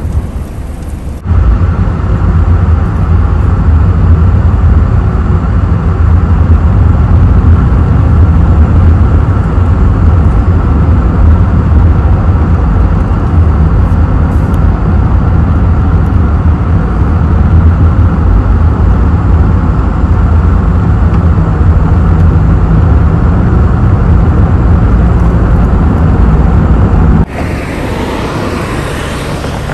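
A car driving at steady speed, heard from inside the moving vehicle: a loud, steady low rumble of engine and tyres on the road. It cuts in about a second in and cuts off near the end, leaving a lighter rushing noise.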